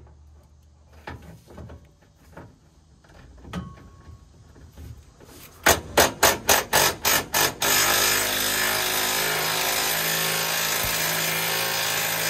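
A power tool working a fastener loose under a truck: after a few faint knocks, about eight short sharp bursts in quick succession, then a steady loud run for several seconds as the tool spins freely.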